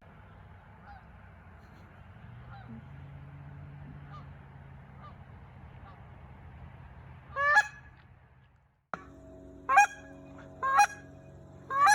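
Canada geese honking: faint, distant honks at first, then loud, close honks repeated about once a second in the second half, after a short break.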